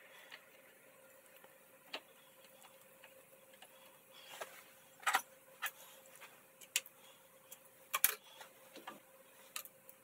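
Scattered sharp clicks and light metal knocks from a steel carriage-stop block with a dial indicator being handled and seated on a lathe bed's V slide, the loudest about halfway and again near the end. A faint steady hum runs underneath.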